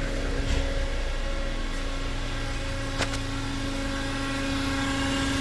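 Renault Oroch engine idling with a steady whistling tone from the intake manifold, still there with a new PCV valve fitted. The mechanic puts the whistle down to a Venturi effect, air rushing past an obstruction in the intake, and suspects the throttle body.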